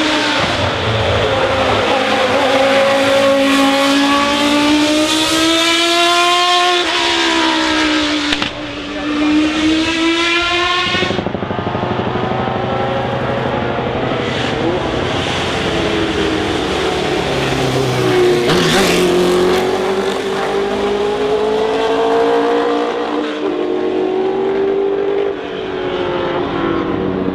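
Racing car engines at high revs, pitch climbing and dropping back at each gear change. About eleven seconds in the sound cuts abruptly to a second car, a 1970s Tyrrell Formula 1 car with its Cosworth DFV V8.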